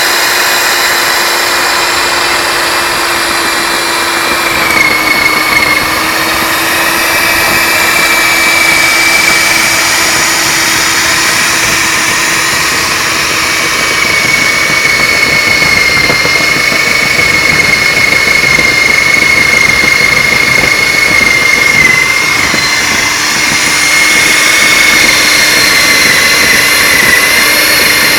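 Diamond chimney-reaming rig's drill motor running steadily, turning a long shaft with a diamond cutting head down a brick flue. A steady high whine over a lower hum, the pitch sagging slightly now and then as the cutter loads up.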